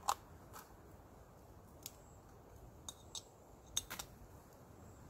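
Several sharp clicks and taps of small metal and plastic parts as a backpacking stove's burner is handled and fitted, with two quick clicks close together about four seconds in.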